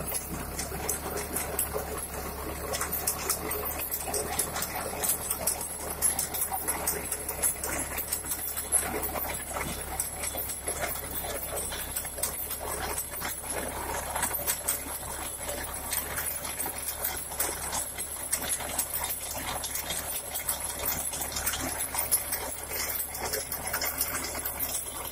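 Deutz-Fahr tractor engine running steadily under load as its rear-mounted trenching implement churns through dry soil, with a dense, irregular crackle and clatter of clods and stones.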